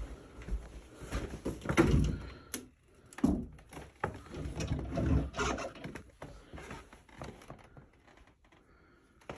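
A bifold closet door is opened with a few knocks and thumps, among footsteps on a hardwood floor.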